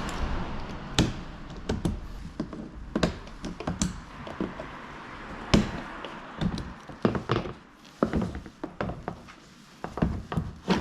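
Irregular knocks, taps and clicks of hand tools and metal parts being handled during work on a car, the loudest a sharp knock about five and a half seconds in.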